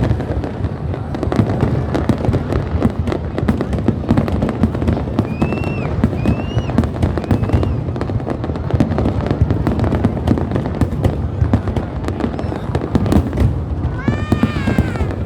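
Fireworks going off close by in a continuous, dense barrage of rapid crackles and bangs. A few short whistle-like tones rise and fall over it around the middle, and a stronger one sounds near the end.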